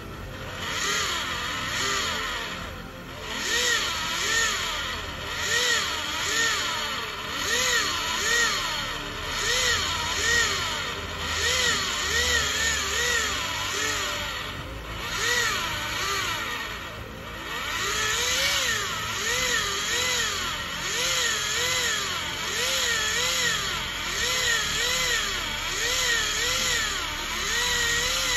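Handheld cheese grater grating hard cheese into a bowl: a continuous whirring that rises and falls in pitch over and over, a little faster than once a second.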